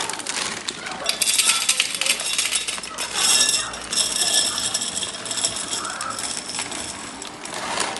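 Dry spaghetti rattling and clinking as it is poured and slid into a storage container. The sound is a dense, continuous clatter that is busiest through the middle and thins out toward the end.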